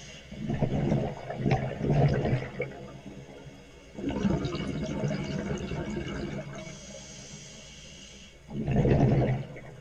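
Scuba diver breathing through a regulator underwater: exhaled bubbles gurgle out in several bursts, with a hissing in-breath shortly before the last one.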